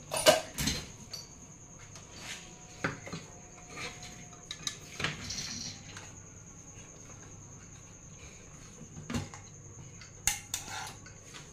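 Knocks and clatter of a T12D+ soldering station's metal case and cables being set down and moved about on a wooden workbench, with the loudest knock just after the start and a few scattered ones after it.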